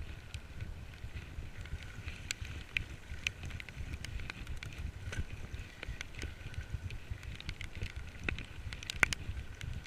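Bicycle ridden in heavy rain: wind rumbles steadily on the microphone, with scattered sharp ticks and clicks throughout. The loudest tick comes near the end.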